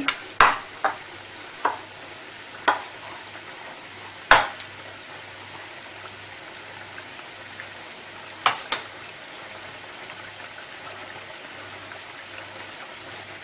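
Floured chicken pieces deep-frying in a small saucepan of hot oil: a steady sizzling hiss, broken by a handful of sharp clicks, the loudest about four seconds in.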